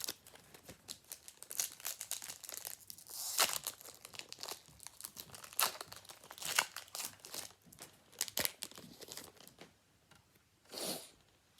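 Foil trading-card booster pack wrapper crinkling and tearing as it is opened and handled, in a dense string of crackles and rustles.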